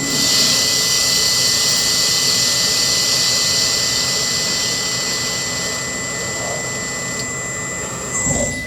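OmniTurn CNC lathe working through its automatic cycle: a loud hiss starts suddenly and fades out after about six seconds, over a steady high whine. A short low sweep comes near the end.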